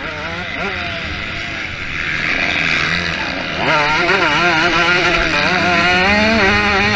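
Motocross bike engine revving hard, its pitch rising and falling quickly as the throttle works. It gets louder about four seconds in.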